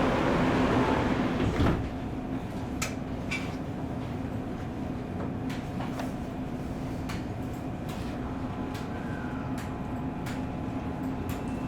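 Subway car doors sliding shut with a thud about two seconds in, cutting off the louder platform noise. Then the stationary car's steady hum with faint electrical tones and scattered light clicks, just before departure.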